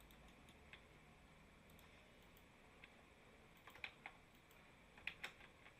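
Near silence with a few faint computer keyboard clicks, in two small groups of about three, around four and five seconds in.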